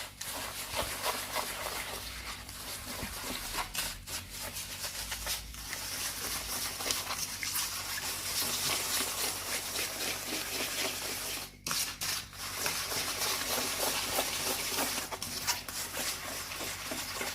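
Eggs and sugar being beaten together in a bowl: a fast, continuous scraping and rubbing of the whisk against the bowl, with a short pause about two thirds of the way through.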